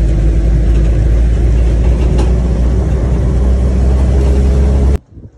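A car being driven along a paved road, heard from inside the cabin: a steady low rumble of engine and road noise that cuts off suddenly near the end.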